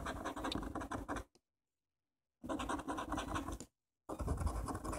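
A coin scratching the coating off a scratch-off lottery ticket in rapid back-and-forth strokes, in three short spells broken by two brief pauses.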